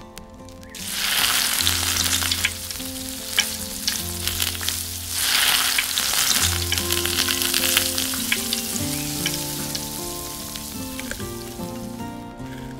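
Food sizzling as it fries in hot oil in a miniature pan. The sizzle starts about a second in, swells again near the middle, then slowly dies down.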